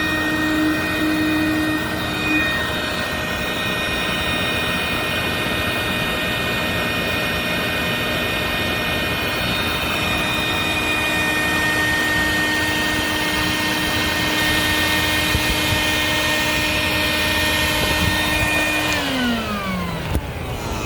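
Stinger wet/dry shop vacuum running steadily with a whining motor while drawing water out of an AC condensate line. Near the end it is switched off and the whine falls in pitch as the motor spins down.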